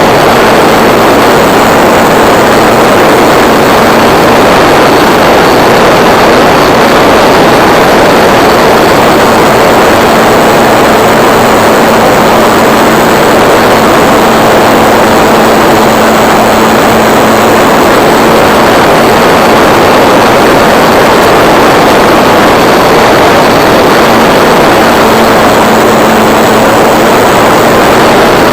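Onboard sound of a radio-controlled Piper Super Cub model in flight: its motor and propeller running steadily with a faint constant whine under heavy, loud wind rush on the microphone.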